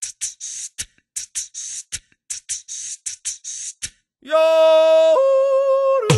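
Vocal intro jingle: a quick rhythm of short hissing hi-hat-like beats, about four a second, then a voice holds one long sung note for about two seconds that steps down in pitch partway through.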